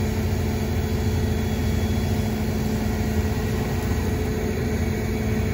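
A heavy engine running steadily at a constant speed, with a steady low hum.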